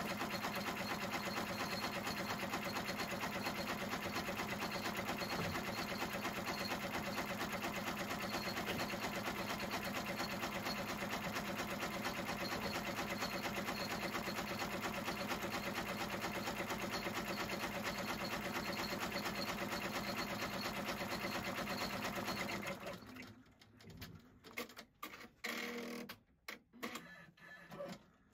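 Computerised embroidery machine stitching at a fast, steady rate. It stops abruptly about 23 seconds in, leaving only faint, irregular small handling sounds.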